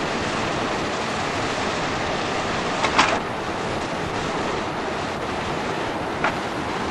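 Steady rush of a waterfall's falling water, with a brief knock about three seconds in and a fainter click near the end.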